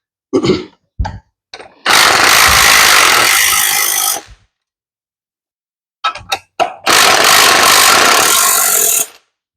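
Angle grinder cutting through a steel car coil spring to remove a coil for lowering, in two steady runs of about two seconds each, with a few short knocks between them.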